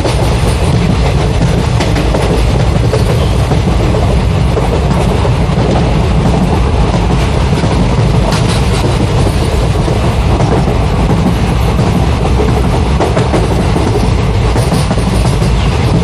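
A train running steadily on its rails: a continuous, even, deep rumble.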